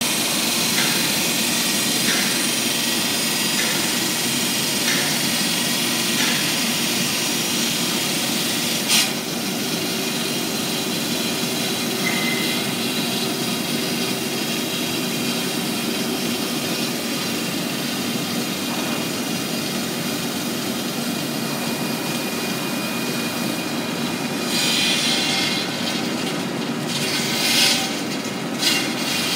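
Water-cooled circular diamond blade of a stone cutting machine sawing through a stack of red Rosso Persia travertine slabs: a steady machine cutting noise. A faint tick repeats about every second and a half in the first few seconds, and a single sharp click comes about nine seconds in.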